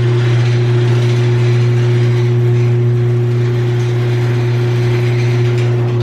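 LiftMaster/Chamberlain chain-drive garage door opener running with a steady hum, its motor driving the chain and trolley on a test run after a new drive gear and sprocket were fitted.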